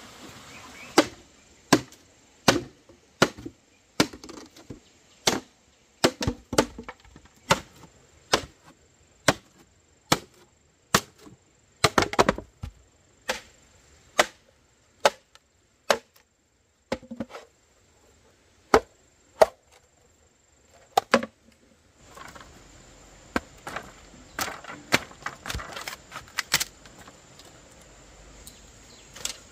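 Machete chopping into bamboo: sharp single strikes, roughly once a second. About two-thirds of the way through they give way to quicker, lighter knocks and cracks as the blade splits a length of bamboo into strips.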